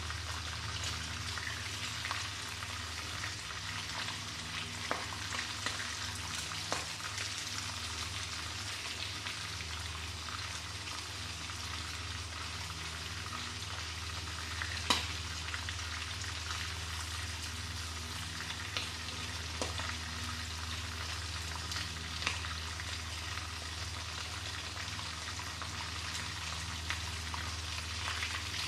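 Battered shrimp deep-frying in hot oil in a wok: a steady sizzle with a low hum underneath. A few sharp clicks stand out, the loudest about halfway through, as wooden chopsticks knock against the pan while turning the pieces.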